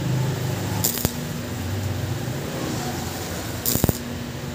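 Stick (shielded metal arc) welding a nut onto a stainless steel tube: the arc crackles steadily over a low hum, with two sharp pops about a second in and near the end.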